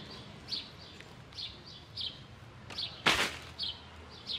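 Small birds chirping, short high calls every second or so, with one loud brief burst of noise about three seconds in.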